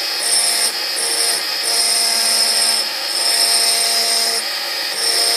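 Small handheld rotary engraving drill (Xtreme Challenge) with a fine bit running with a steady high whine while engraving a glass wine bottle. An extra high tone comes and goes every second or so.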